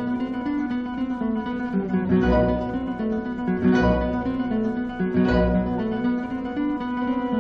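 Background music: acoustic guitar, with a strummed chord about every second and a half over sustained notes.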